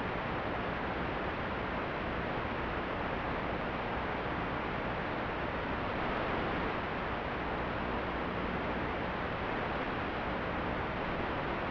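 Steady, even static hiss from the audio channel of a 5.8 GHz analog FPV video receiver.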